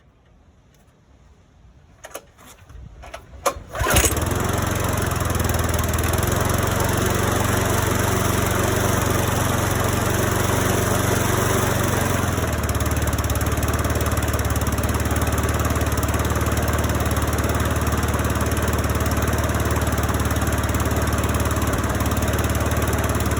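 Briggs & Stratton four-stroke engine on a rear-roller lawn mower, cold-started after four months sitting: a few clicks, then it catches about four seconds in and runs steadily, its low note changing slightly about halfway through.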